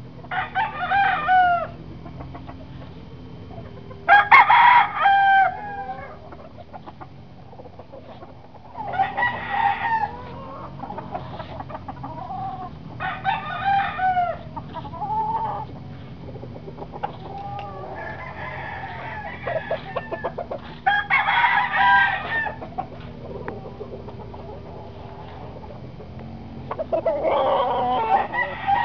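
Roosters crowing in turn, about seven crows of a second or so each, spaced a few seconds apart.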